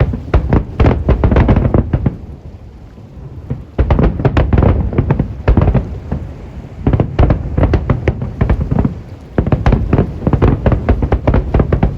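Aerial fireworks display: rapid volleys of shell bursts, sharp bangs over deep booms. The barrage thins out about two seconds in, resumes dense just before four seconds, and eases briefly again around nine seconds.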